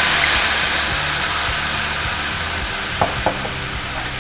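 White wine hitting a hot stainless steel pan of toasted arborio rice, sizzling and steaming as it deglazes the pan, the hiss easing slightly as it goes. A couple of light knocks from the spatula come about three seconds in.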